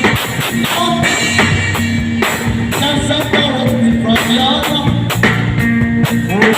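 A drum kit played along to a song with guitar and singing.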